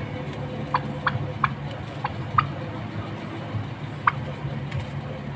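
Domestic turkeys giving short, sharp putt calls, about five spread over a few seconds, over a steady low hum.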